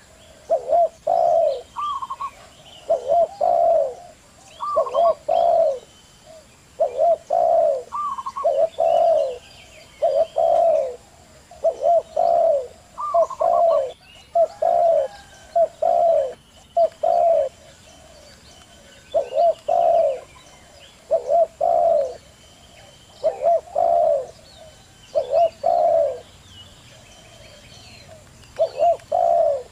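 Wild zebra doves and spotted doves cooing in short repeated phrases, about one a second with a few brief pauses; some phrases open with a higher note. Small birds chirp faintly in the background.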